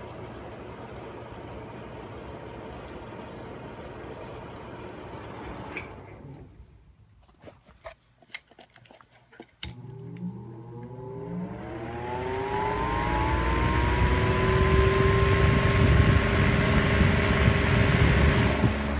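Electric fan sounds: a steady whir that drops away about six seconds in, a few sharp clicks, then a fan motor starting up, its whine rising in pitch over several seconds and levelling off to a steady tone under a growing rush of air.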